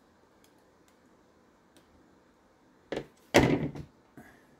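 Hand tool and small nitro engine knocking on the workbench while the collet is worked off the crankshaft: faint ticks, then two dull knocks about three seconds in, the second louder and longer, followed by a light click.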